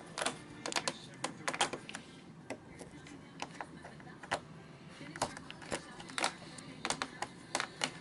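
A flat-head screwdriver turning a Phillips screw out of an all-in-one PC's back cover: irregular sharp clicks and scrapes of the blade in the screw head, roughly two a second.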